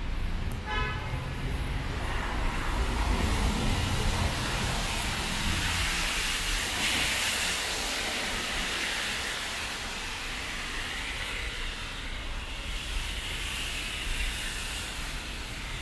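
Traffic on a wet multi-lane road: tyres hissing on the wet asphalt with a low engine rumble, heavier in the first few seconds, and a passing vehicle's hiss swelling about seven seconds in.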